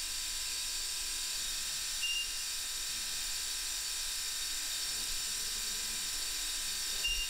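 Steady hiss with several faint high steady tones running through it, and a short high beep about two seconds in and again near the end.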